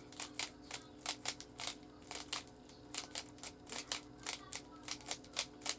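Rubik's cube faces being turned by hand: a quick, irregular series of plastic clicks and snaps, several a second.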